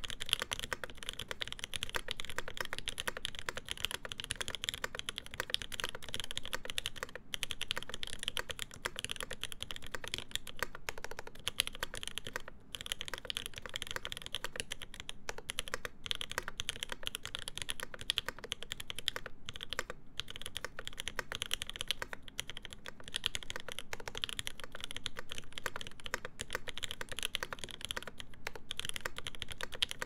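Typing on a Linworks Montage mechanical keyboard built with Krytox 205g0-lubed JWK H1 linear switches, a full aluminium plate and GMK keycaps. It is a steady, dense stream of keystrokes, broken by a few short pauses.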